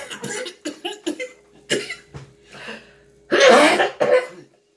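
A woman coughing and spluttering on 2x spicy fire noodles: a run of short coughs and splutters, then two loud coughs about three and a half seconds in.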